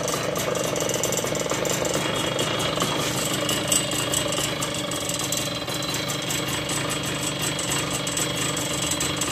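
TVS XL Heavy Duty moped's small single-cylinder two-stroke engine running steadily with a fast rattling knock, a 'kada kada' noise that the mechanic puts down to a worn piston and crank.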